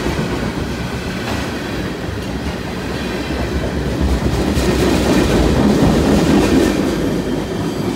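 Freight train of tank cars rolling past close by, its steel wheels rumbling steadily and clicking over the rail joints. The last car goes by near the end.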